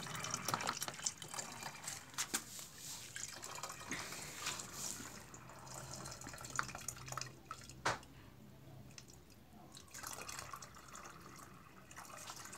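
Water poured from a plastic bucket through a plastic funnel into a plastic bottle: an uneven thin stream splashing and trickling, with scattered drips. The stream is heaviest in the first few seconds, then thins.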